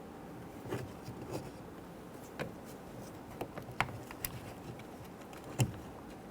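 Scattered light clicks and taps of plastic parts being handled as a latch cable end is fitted into a car's interior door handle, with a sharper click about five and a half seconds in.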